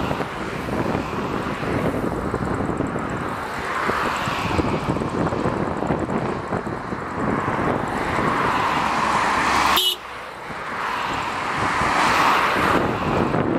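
Airbus airliner's jet engines at takeoff power on the takeoff roll, heard from afar as a broad roar that swells and fades several times, with wind buffeting the microphone. A sharp click comes near the end, after which the sound drops briefly.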